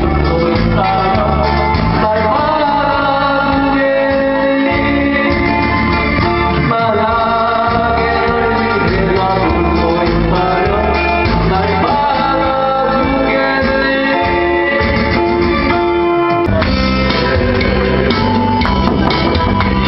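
A man singing a song into a microphone over loud amplified backing music. About sixteen seconds in the music breaks off abruptly and another stretch of music begins.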